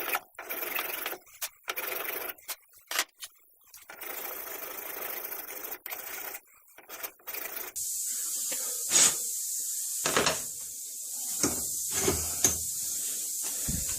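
Hand filing strokes on a horn muzzle-end piece being shaped for a gunstock, irregular scrapes with short pauses between them. About halfway through this gives way to a steady hiss with a few knocks and taps.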